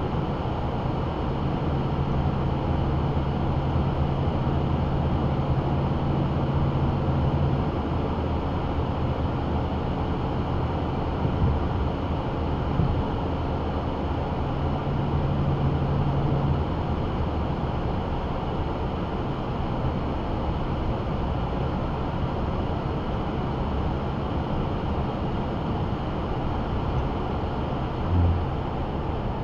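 Inside a vehicle cab driving at motorway speed: steady engine drone and tyre and road noise. The low engine hum is strongest in the first half and eases after about 17 seconds, with a short low thump near the end.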